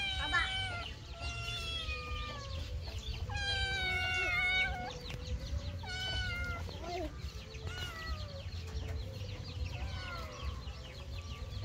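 A kitten meowing repeatedly, about eight meows, each falling in pitch, with a longer, louder meow around the fourth second.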